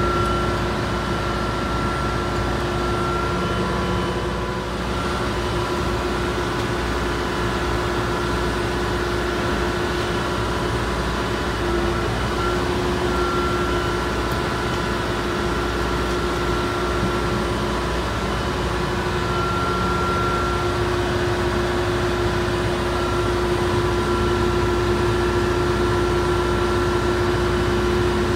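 Steady ship's engine-room machinery noise: a constant drone with a steady hum and a couple of steady whining tones, unbroken throughout.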